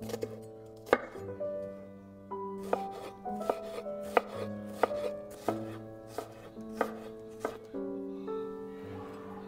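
Chef's knife chopping a shallot on a wooden cutting board: sharp knocks of the blade on the board at uneven spacing, about one or two a second, thinning out near the end. Soft background music with sustained notes plays underneath.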